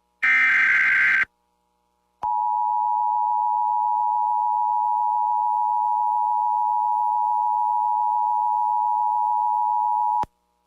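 Emergency Alert System alert tones: the last of the SAME header's digital data bursts, a buzzy one-second warble, then after a second's pause the EAS attention signal, a steady two-note electronic tone held for about eight seconds that cuts off sharply. The tones announce a new warning.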